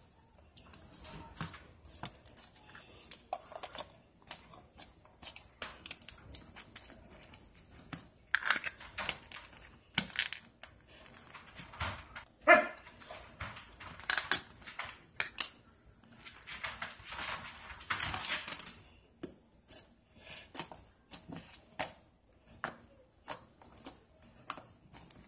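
Hands kneading and squeezing slime: irregular wet clicks, crackles and pops from the squished slime. A short squeaky pitched sound about halfway through is the loudest moment.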